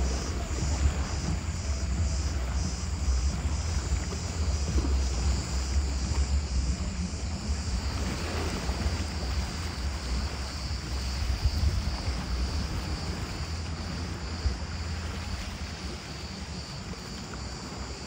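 Wind buffeting the phone's microphone with a low rumble, over small waves washing on the rocky shore. A high pulsing buzz, about three pulses a second, runs through it and turns steady about four seconds in.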